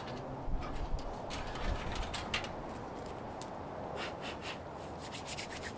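Scattered light clicks and small handling noises of hands working on parts in a car's engine bay.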